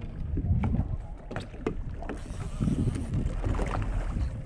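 Wind rumbling on the microphone aboard an open fishing boat at sea, with scattered short knocks and clicks.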